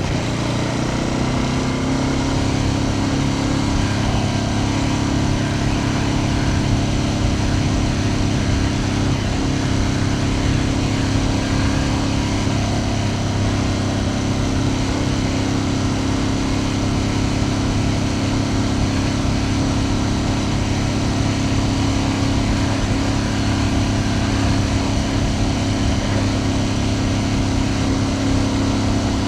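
Ducati Panigale V2S's 90-degree V-twin engine running at a steady speed. Its pitch drops and settles about a second in, then holds nearly even.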